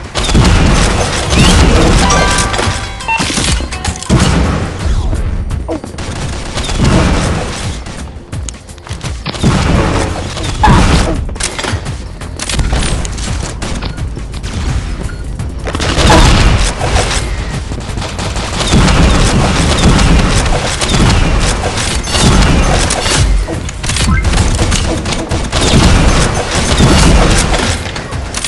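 Consumer fireworks going off in a long barrage: many rapid bangs and booms with no let-up, the loudest surges coming every couple of seconds.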